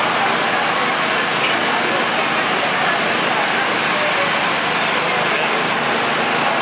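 Steady, even rushing noise of a busy race paddock, with faint indistinct chatter.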